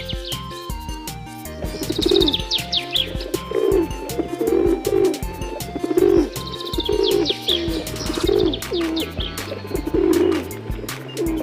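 Pigeons cooing in a steady run of low coos, about one a second, starting about two seconds in, with high chirps above them.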